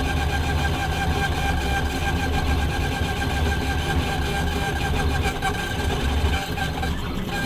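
6040 CNC router machining plastic: the spindle whines steadily while the stepper motors drive the axes along the toolpath, running fast. The low rumble eases slightly about six seconds in.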